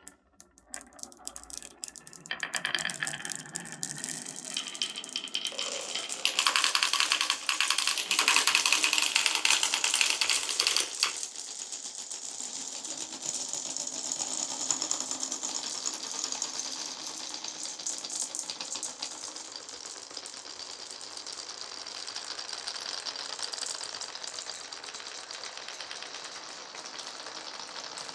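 Marbles rolling and clattering through a wooden marble run, a dense run of quick clicks and rattles. It builds up over the first few seconds, is loudest for a stretch in the middle, then settles into a steadier, softer rattle.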